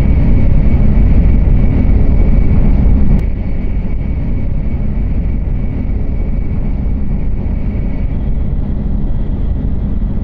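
Cabin noise of an N700 series Shinkansen train running: a steady low rumble with a faint high tone, which drops suddenly in level about three seconds in.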